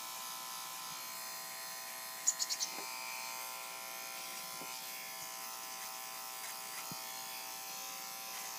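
Electric hair clipper running with a steady buzz as it trims the hair between a dog's toes. About two seconds in there is a quick run of four sharp clicks.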